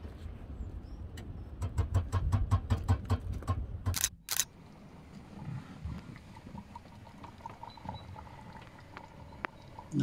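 Footsteps crunching on gravel as a rapid run of short clicks over a low rumble, then a single loud burst about four seconds in that cuts off abruptly.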